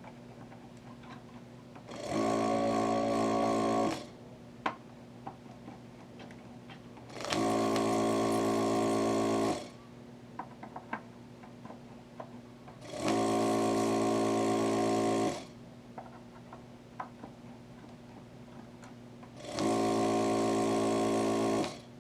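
Vacuum pump of an electric desoldering tool switching on in four bursts of about two seconds each, a steady hum, sucking molten solder off the capacitor leads. Light clicks between the bursts.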